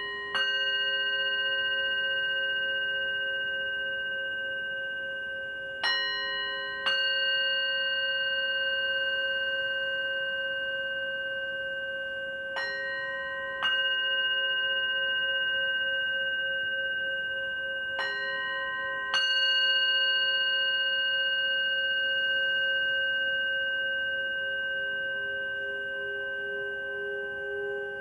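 Hand-held metal singing bowl struck with a mallet: one strike at the start, then three pairs of strikes about a second apart, spaced roughly six seconds apart. Each strike rings on in a long, slowly fading tone that wavers gently as it sustains.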